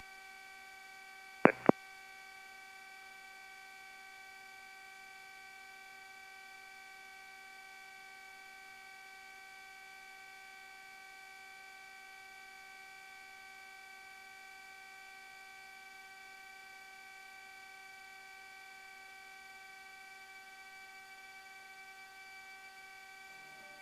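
Steady electrical hum made of several fixed tones in the aircraft's intercom audio feed, with two short clicks about a second and a half in.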